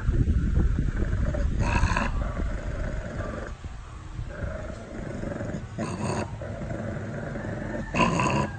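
A pug growling, a low rumble that is strongest in the first few seconds and then eases off, broken by three short, sharper sounds a few seconds apart.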